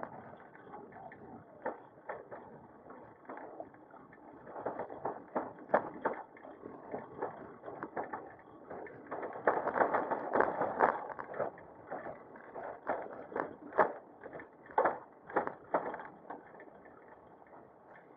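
Bicycle rattling and knocking as it rolls over an uneven surface, picked up by a bike-mounted action camera: irregular clatter, busiest around ten seconds in.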